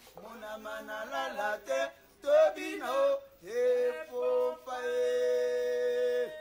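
A man's voice singing unaccompanied: a few short sung phrases, then one long steady note held from about three and a half seconds in, which breaks off near the end.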